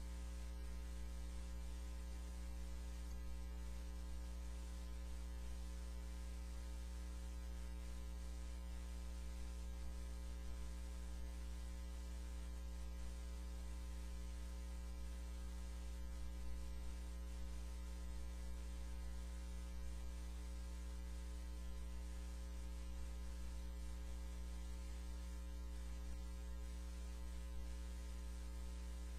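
Steady electrical mains hum with a faint hiss, unchanging throughout.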